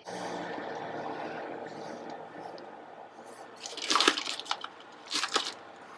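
Food being handled as slices of deli chicken breast are laid over crisp lettuce on a tortilla: two short crunchy crinkles, about four and five seconds in, over a low steady hum.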